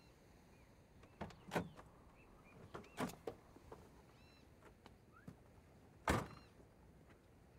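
First-generation Chevrolet Corvette roadster's door: a run of latch clicks and knocks as it is opened, then shut with one solid thunk about six seconds in, the loudest sound. Faint bird calls chirp in the background.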